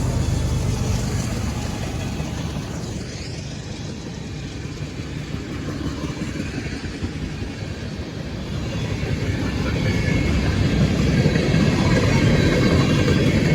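CSX diesel freight locomotives and train running with a steady low rumble, growing louder about two-thirds of the way through as the train draws near.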